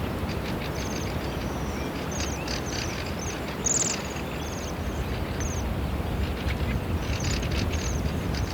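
Bohemian waxwings giving their high, trilled calls, many short calls overlapping, with one louder call a little before halfway, over a steady low background rumble.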